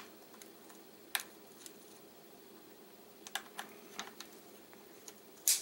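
Scattered small clicks and taps of an Olight weapon light's quick-disconnect clip being worked onto a rail mount on a rifle barrel, with the sharpest click just before the end as the clip snaps on.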